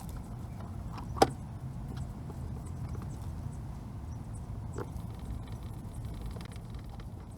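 Honda Zoomer scooter's small single-cylinder engine idling with an uneven low beat, with a sharp metallic click about a second in and a fainter one later.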